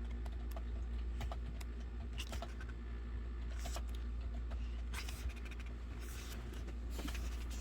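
Album contents being handled: light scratching and rustling of paper and card, with small clicks and a few brief louder rustles in the second half, over a steady low hum.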